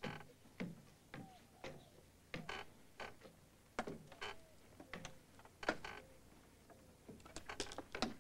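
Footsteps on creaking boards, an uneven tread of about two steps a second, some steps drawing a short squeak from the wood.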